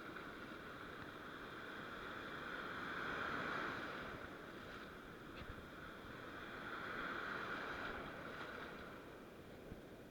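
Sea surf washing in, a steady hiss of water that swells twice, about three seconds in and again about seven seconds in.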